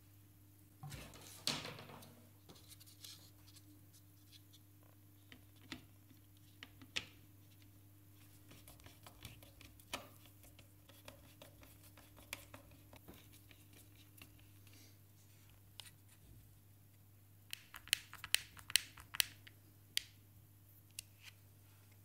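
Faint handling sounds of hand assembly: a screwdriver turning screws and a plastic speaker grille being fitted onto the enclosure, heard as scattered clicks and scrapes, with a quick run of sharp clicks near the end. A steady low hum runs underneath.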